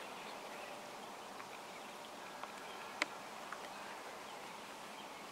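Quiet outdoor background: a steady faint hiss with a few small ticks, and one sharper click about three seconds in.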